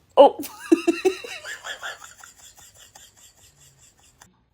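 A person laughing: a burst of high-pitched laughter that breaks into rapid, even pulses and fades away over a few seconds.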